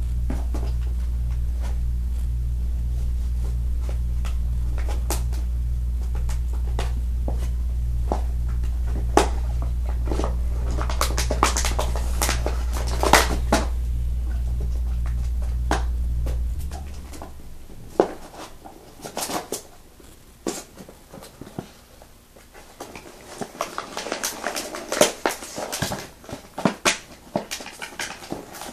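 A steady low hum with a regular pulsing just above it cuts off suddenly about sixteen seconds in. Scattered clicks, knocks and rustling of handling run throughout and grow busier near the end.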